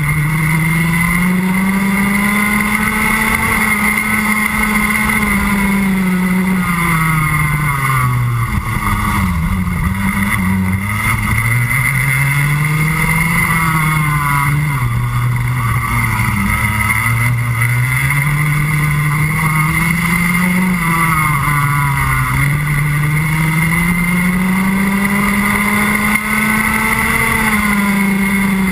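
Rotax Max Junior 125cc two-stroke single-cylinder kart engine, recorded on board, climbing steadily in pitch as it accelerates along each straight and dropping back when lifting off into the corners, about six times over.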